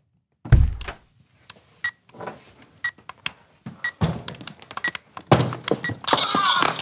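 A deep thud, then a run of clicks and knocks as a hard black case is carried in, set down on a wooden desk and its catches worked open. A light tick sounds about once a second throughout.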